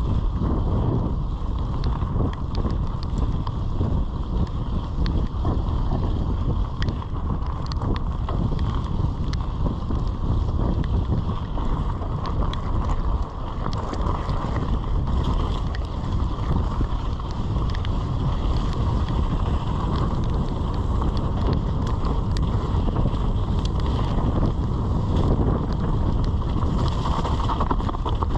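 Wind buffeting the mountain biker's camera microphone while the bike's tyres roll fast over gravel and dirt trail, with many small knocks and rattles from the bike on the rough ground.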